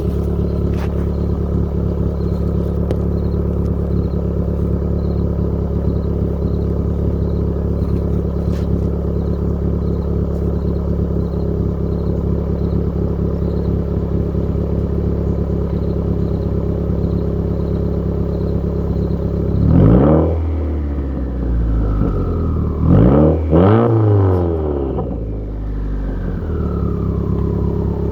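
2018 Subaru WRX's turbocharged 2.0-litre flat-four, breathing through a Tomei titanium cat-back exhaust and a Cobb catted resonated J-pipe, idling steadily. About twenty seconds in it is revved in short blips that rise and fall: one, then two in quick succession, then another near the end.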